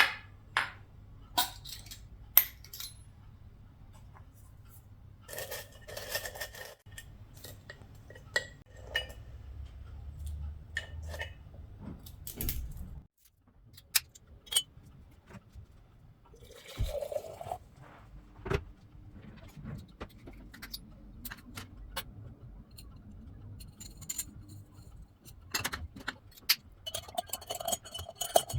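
Scattered clicks, clinks and light knocks, as of small hard objects being handled, over a low rumble that stops about halfway through.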